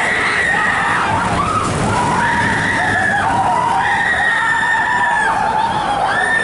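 Roller coaster in motion: a loud steady rush of wind and track noise, with a run of high, held squeals about a second each from the wheels on the track.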